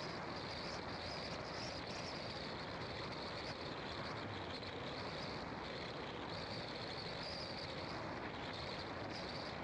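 Steady road and wind noise of a car driving along a country road, with a high hiss that swells and fades several times.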